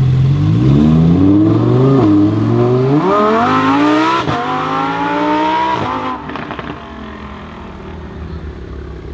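Lamborghini Huracán Performante's naturally aspirated V10 accelerating hard, rising in pitch through three quick upshifts, then fading as the car pulls away.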